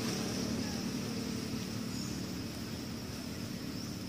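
Steady low hum of a distant engine running, with a constant high-pitched hiss above it.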